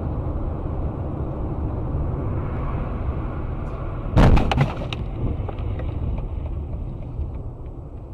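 Car road and engine rumble, then a loud crash of impact about four seconds in, followed by a few rattling knocks, as in a vehicle collision.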